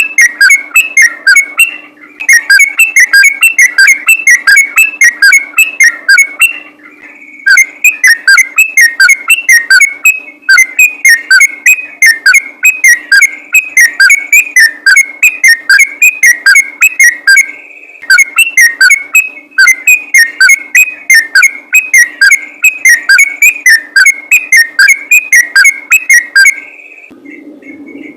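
Sooty-headed bulbul singing a loud, rapid run of whistled notes, about four or five a second, in long bursts broken by brief pauses.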